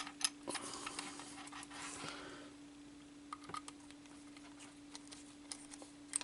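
Faint scattered clicks and taps of a small screw and plastic model parts being handled as the screw is started, busier in the first couple of seconds and sparser after, over a steady low hum.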